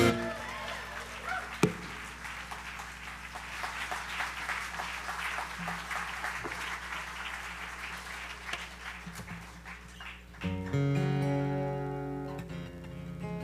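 An acoustic guitar's final chord stops right at the start, followed by audience applause for about ten seconds. Near the end, an acoustic guitar rings out with a few sustained chords.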